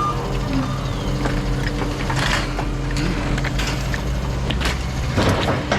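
A vehicle engine running steadily at a scrap yard, with scattered knocks and a burst of metal clatter near the end as scrap is handled.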